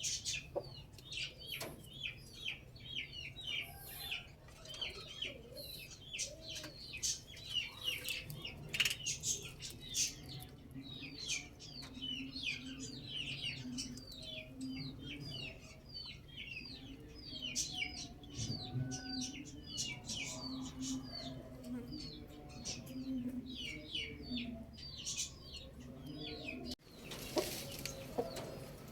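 Birds and poultry calling together: many short, high chirps, several a second, over lower clucking calls that come and go through the middle. The sound changes abruptly near the end.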